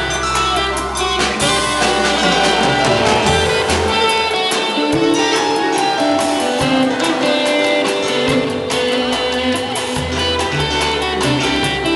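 A band playing instrumental music, with a guitar to the fore over a bass line and a steady percussive beat.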